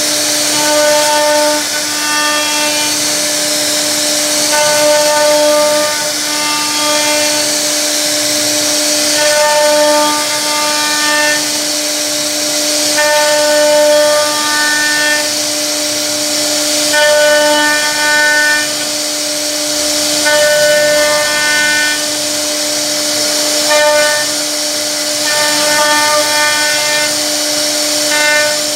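CNC router spindle carving a relief pattern into a wooden board. A steady whine runs throughout, and a harsher cutting tone swells and fades every second or so as the bit bites into the wood, over a high hiss of chips.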